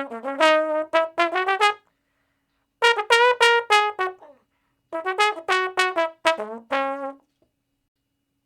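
A brass instrument playing three quick runs of short, separate notes with brief pauses between them, stopping about seven seconds in.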